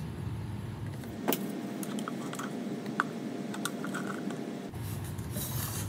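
Steady background hum with a few faint clicks and taps of plastic pitchers and utensils being handled on a steel worktable, the sharpest about a second in and again near the middle.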